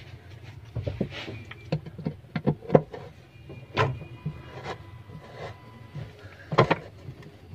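Irregular clicks and knocks of a tool working the pulley bolt on a washing machine's rotor shaft as it is tightened, with two louder knocks, one partway through and one near the end.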